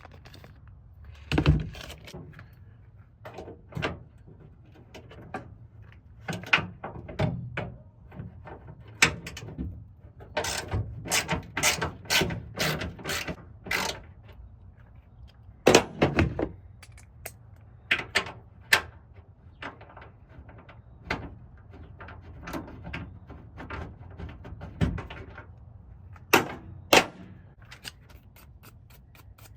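Hand work fitting a tailgate assist shock and its mounting plate to a pickup tailgate: irregular clicks, knocks and clanks of tools and parts. There is a quick run of clicks about ten to fourteen seconds in, and a few heavier thumps.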